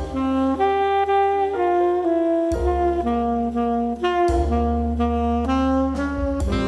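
Jazz quintet playing: alto and tenor saxophones sound long held notes in harmony over piano, double bass and drums, with a few cymbal strokes.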